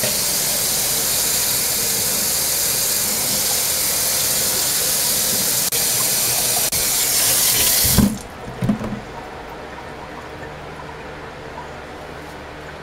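Kitchen faucet running into a stainless steel sink for about eight seconds, then shut off, followed by two soft knocks. A room fan keeps up a steady hum underneath.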